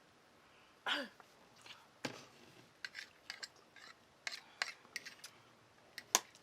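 Utensils tapping and scraping against a bowl while eating noodles: scattered light clicks and taps, with a short falling sound about a second in.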